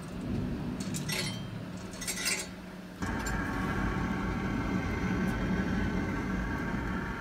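Pellet stove starting up: wood pellets clink as they drop into the burn pot over a low motor hum. About three seconds in, the sound switches abruptly to the steady, louder whir of the stove's blower as the pellets ignite.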